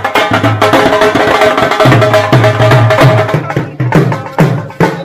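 Large shoulder-slung drums beaten with sticks in a fast, dense street rhythm, with a steady held note over the drumming for the first few seconds. Towards the end the beat thins out to separate strikes, about two or three a second.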